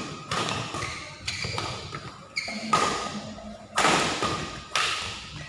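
Badminton rackets striking a shuttlecock back and forth in a rally: about five sharp hits roughly a second apart, each ringing out in the echo of a large hall.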